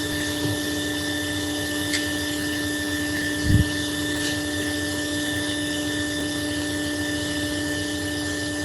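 Hot air rework station blowing steadily, a constant hiss with a steady hum. There is a faint click about two seconds in and a short low thump about three and a half seconds in.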